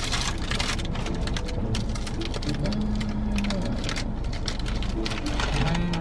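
A woman's closed-mouth 'mmm' moans of enjoyment while eating, mostly short, with one held for about a second near the middle. Under them runs a steady crackling and rustling.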